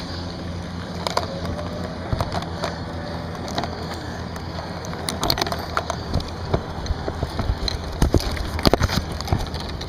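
Camera handling noise: irregular rubbing, clicks and knocks as the handheld camera is moved against skin and the plastic kayak deck, busier and louder in the second half, over a low steady hum.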